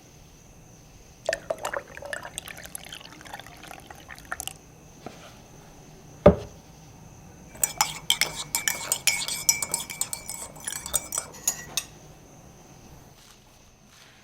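Coffee-making sounds: liquid poured into a cup for a few seconds, a single knock about six seconds in, then a spoon clinking rapidly against a mug as it stirs for about four seconds.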